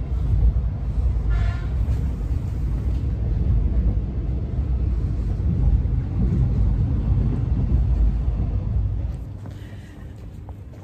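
Steady low rumble and running noise of a moving suburban electric train, heard from inside the carriage, with a short high tone about a second and a half in. Just after nine seconds the rumble gives way to much quieter outdoor sound on the platform.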